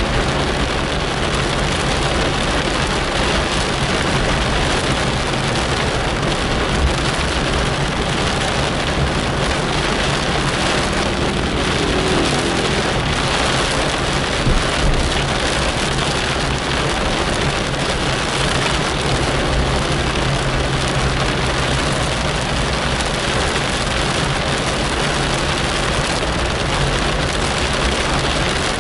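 Rain falling steadily on a moving car, heard from inside the cabin, over the steady low hum of the car and its tyres on the wet road.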